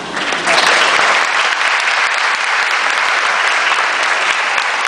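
Audience applauding, the clapping swelling about half a second in and then carrying on steadily.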